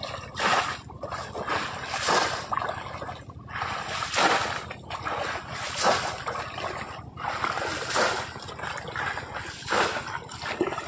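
Water splashing and sloshing in repeated surges, roughly one a second, typical of wading and plunging a bamboo polo trap into shallow water.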